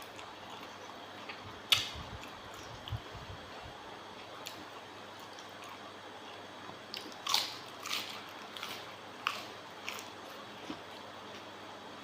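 A person biting and chewing raw seafood close to the microphone: scattered wet crunches and clicks, loudest about two seconds in and again around seven to eight seconds in.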